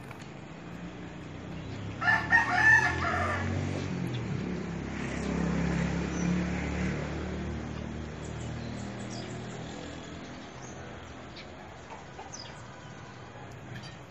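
A rooster crowing once, about two seconds in, over a low droning hum that swells in the middle and then fades.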